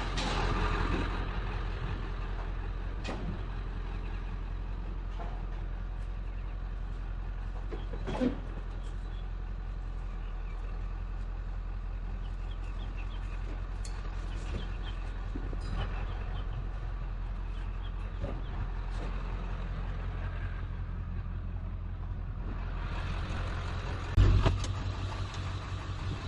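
Truck driving, a steady engine and road hum, with a short knock about eight seconds in and a louder thump near the end.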